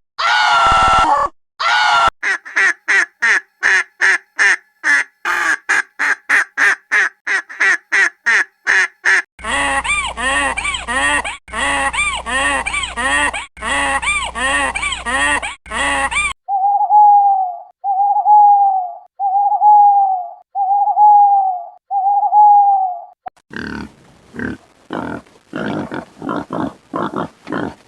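A run of different animal calls, one recording after another. First comes a fast series of short repeated calls, about three a second. A longer stretch of calls with rising-and-falling tones follows, over a low hum. Next come six short single-pitched calls about a second apart, then a new series of quick short calls near the end.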